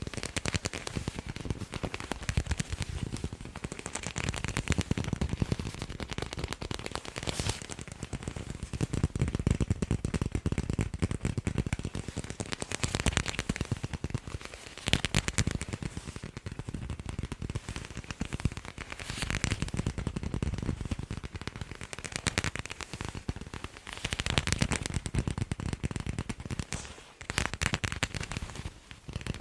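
Fast tapping on sports balls: a dense run of rapid taps, with a couple of brief lulls.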